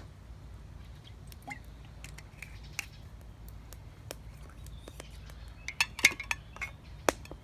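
Scattered clinks and knocks of cookware and utensils being handled, with a burst of louder metallic clinks about six seconds in.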